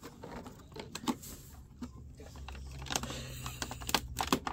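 Hands handling a cardboard advent calendar box: scattered light taps, clicks and rustles as it is steadied and a door is worked open, growing busier near the end.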